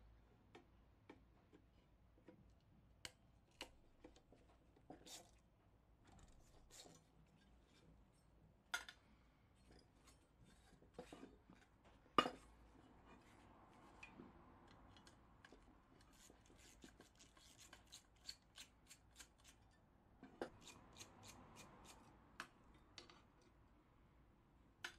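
Small metal clicks and taps from a screwdriver and the sheet-metal parts of a Coleman 508A gasoline camp stove being taken apart. Scattered sharp clicks, the loudest about twelve seconds in, with two runs of quick, light clicks in the second half.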